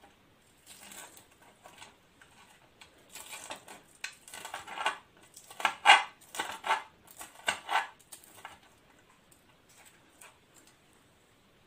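Kitchen knife cutting crunchy batter-fried chicken strips on a cutting board: a run of short, crisp cuts and knocks of the blade on the board, loudest around the middle and fading out over the last few seconds.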